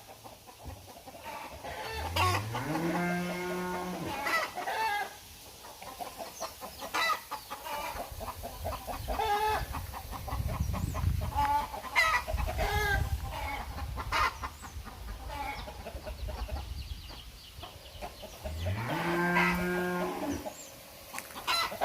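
Free-range country chickens giving loud alarm cries, a run of short sharp repeated calls, the kind they raise when a crow or other bird of prey comes to snatch a chicken. A cow moos twice, a low call rising in pitch and then held, about two seconds in and again near the end.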